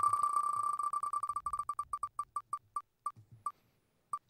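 Spinning prize-wheel sound effect: rapid electronic ticks, each a short high beep, that slow down steadily as the wheel loses speed, ending in a last tick near the end.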